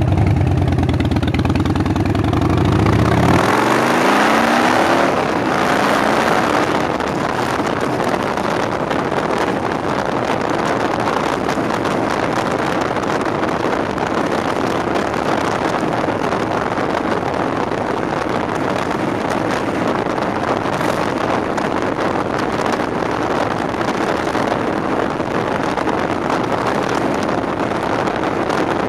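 Harley-Davidson V-twin engine idling at a stop, then revving and rising in pitch as the motorcycle pulls away about three seconds in. After that, steady wind buffeting the microphone at riding speed covers most of the engine.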